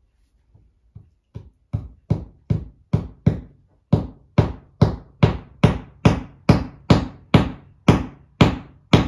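Hand hammer driving a nail into a wall: a steady run of about twenty blows, roughly two and a half a second, starting as light taps and hitting hard from about two seconds in.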